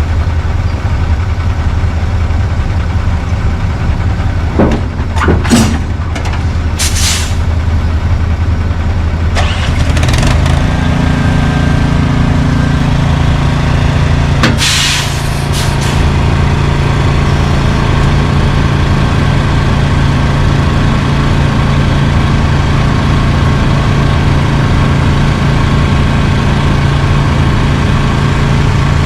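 Semi truck's diesel engine running steadily, with short hisses of released air several times in the first half. About ten seconds in the engine note steps up and holds higher.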